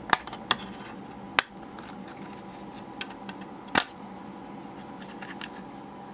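Hard plastic shell of an OtterBox Defender phone case clicking and snapping as it is opened and handled. There are several sharp clicks, the loudest right at the start, about a second and a half in and near four seconds in, with lighter ticks between.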